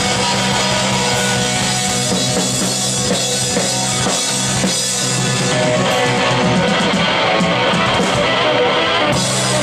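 Live rock band playing loud: a drum kit and electric guitars through amplifiers, with no break.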